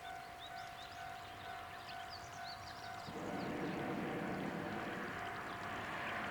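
Level-crossing warning signal ringing with a steady pulsing tone while small birds chirp. From about three seconds in, the rumble of an approaching Hojo Railway diesel railcar grows steadily louder.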